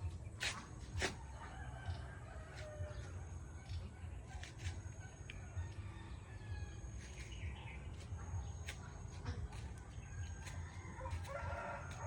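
Farm poultry calling, with scattered faint calls and one longer, louder call about eleven seconds in, over a steady low rumble and a few sharp clicks.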